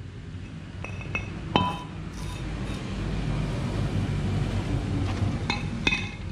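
Metal-on-metal clinks with a bell-like ring: a steel motorcycle rear sprocket hub and a heavy metal cylinder being set down and handled on a concrete floor. A few light clinks about a second in, the loudest strike just after, then a pair of ringing clinks near the end, over a steady low rumble.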